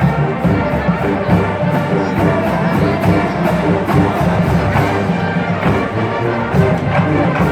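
Marching band playing, brass holding sustained chords over a steady drum beat.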